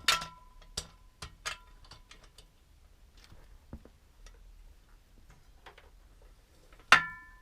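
Scattered sharp metallic clinks and knocks of tools and metal parts being handled, a few of them ringing briefly. The loudest, ringing clink comes near the end.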